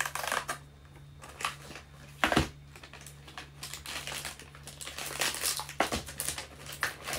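Cardboard box of macadamia chocolates being opened and its inner tray and paper sheet handled: irregular crinkling and rustling, with a sharper crackle about two and a half seconds in.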